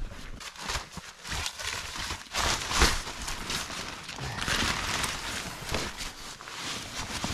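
Nylon tarp rustling and crinkling as it is shaken out and spread by hand, with a sharper knock about three seconds in.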